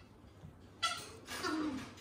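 A white cockatoo making short calls: a brief sharp one about halfway through, then a longer one right after it.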